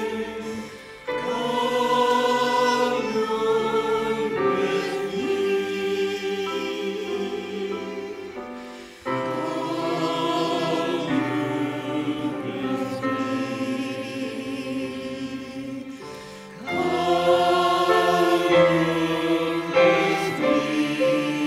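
Mixed church choir of men and women singing a hymn with electric keyboard and violin accompaniment. The singing comes in phrases, with a new phrase entering after a short dip about a second in, about nine seconds in, and again about sixteen seconds in.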